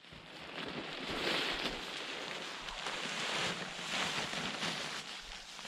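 Nylon tent rain fly rustling and swishing as it is spread over the inner tent, swelling several times as the fabric is pulled and shaken.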